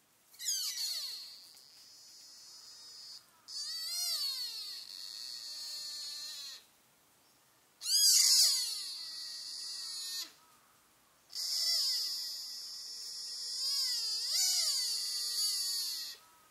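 A sika deer fawn bleating "bee-bee" in four long bouts of high, wavering squeals, each sliding down in pitch; it is a strange call that fawns make when in a good mood.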